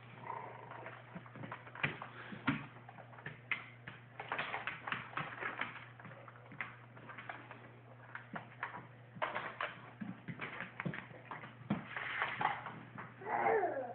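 Small plastic toy cars clicking and clacking against a plastic toy parking garage as a toddler handles them, many irregular small knocks. Near the end a toddler gives a short babbling call.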